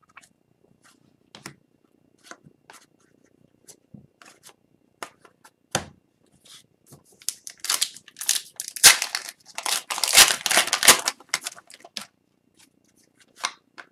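Trading cards being handled and set down with scattered light clicks and flicks, then, about halfway through, a hockey card pack's wrapper being torn open and crinkled for about four seconds.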